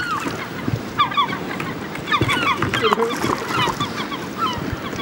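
A bird calling over and over with short, downward-slurred notes, over the steady rush of river rapids.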